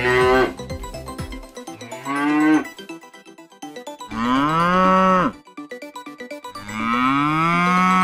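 Calves mooing: a moo trails off just after the start, then a short moo and two long drawn-out moos follow, each rising and then falling in pitch.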